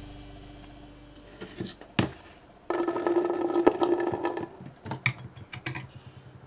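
Water beads (Orbeez) poured into a glass bowl: a dense rattle of beads hitting and tumbling on the glass from a little under three seconds in to about four and a half seconds, with scattered clicks of beads being handled before and after. In the first second, the last tone of a musical jingle is fading out.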